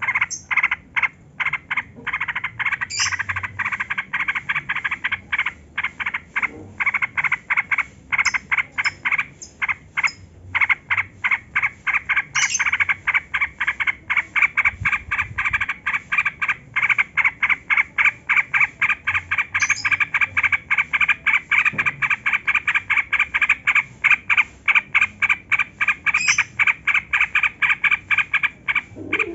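Yellow-vented bulbul (trucukan) singing a long run of rapid chattering notes, about three a second, with a few brief higher notes mixed in. This is the long unbroken 'ropel' song that is played to lure other bulbuls into singing.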